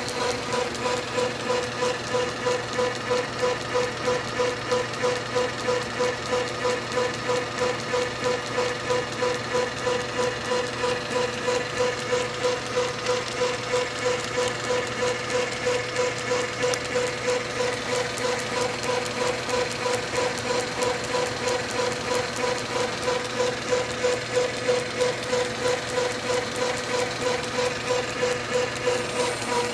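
South Bend metal lathe running: a steady whine with an even pulse about three times a second.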